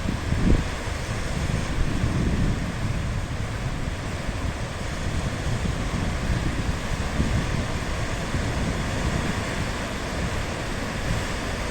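Sea surf washing steadily, with wind rumbling on the microphone.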